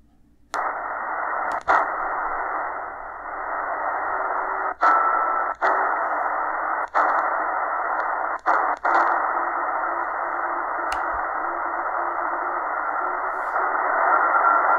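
Eton Grundig Executive Satellit shortwave receiver in single-sideband (LSB) mode, hissing with band noise on 80 metres. The audio cuts out briefly about six times with small clicks as the mode and tuning buttons are pressed. Near the end a faint steady tone from a weak signal comes through the hiss.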